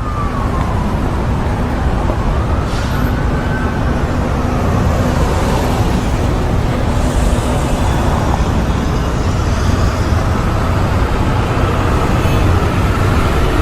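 Busy city street ambience: dense traffic noise with a steady low rumble, and a siren slowly wailing up and down above it.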